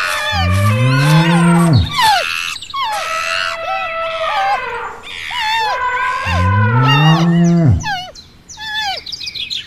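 Cow mooing twice, each long low call rising then falling in pitch, about five seconds apart. High chirping birds run behind it.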